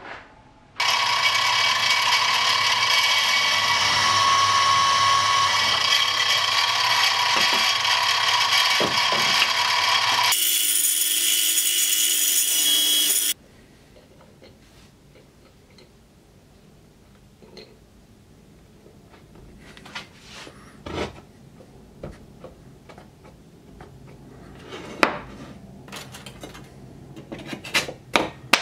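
A power tool's electric motor runs steadily for about nine seconds, then a thinner, higher-pitched motor sound for about three seconds, each stopping abruptly. After that come light clicks and taps of small parts being fitted into a wooden block.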